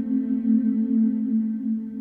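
Background music: a calm ambient track of sustained low tones that swell gently.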